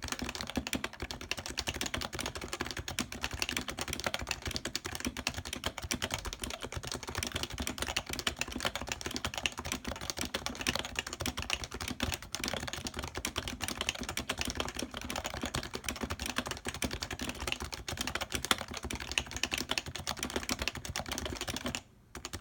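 Fast, continuous typing on a Happy Hacking Keyboard Professional 2 with non-silenced Topre electrostatic-capacitive switches, a dense run of keystrokes with a brief pause near the end.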